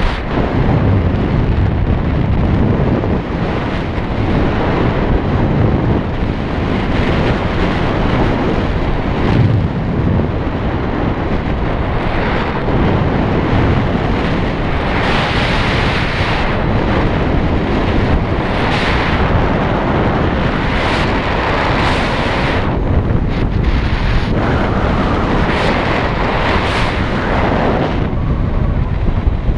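Wind rushing and buffeting over the microphone in flight, loud and continuous, with gusts of sharper hiss coming and going in the second half.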